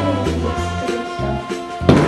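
Background music with a pulsing bass line, and one sharp knock near the end.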